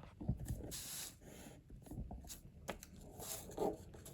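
Pokémon trading cards handled and flipped through one by one: faint slides, flicks and rustles of card on card, with a brief louder rustle about a second in.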